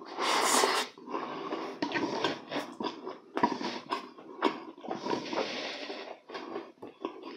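Close-miked eating sounds: a loud wet slurp of spicy stir-fried noodles in the first second, then wet, sticky chewing and lip smacks with breaths through the nose.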